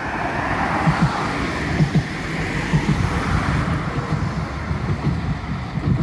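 Road traffic: cars driving past on a seafront road, the tyre and engine noise swelling during the first few seconds. Underneath runs a low thud about once a second.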